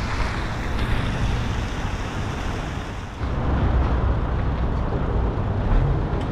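Road traffic passing on a city street: a steady rush of cars, louder from about three seconds in, with wind rumbling on the microphone.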